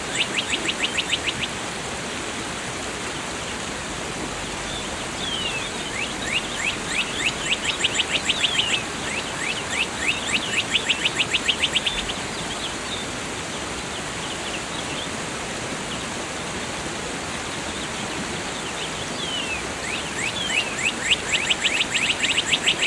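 Steady rushing of a waterfall, with a songbird singing fast trills of short downward-slurred notes in several bouts: near the start, twice in the middle and again near the end.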